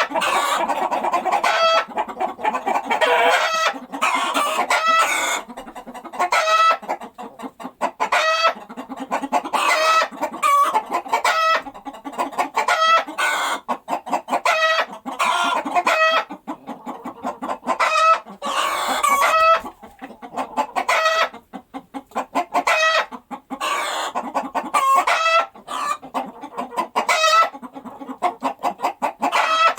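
Hens clucking in short, repeated calls that follow each other quickly and overlap, with brief pauses between runs.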